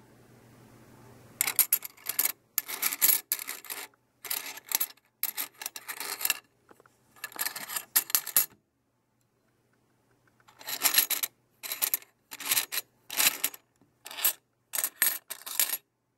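Loose Austrian 3-euro Mosasaurus coins clinking and jingling against one another as they are handled and picked up by hand. The sound comes in short bursts, with a pause of about two seconds midway.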